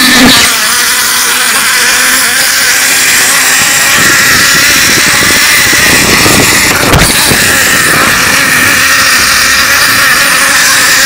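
Zipline trolley pulleys running fast along a steel cable with a steady whirring hum, mixed with wind rushing over the microphone. A brief knock about seven seconds in.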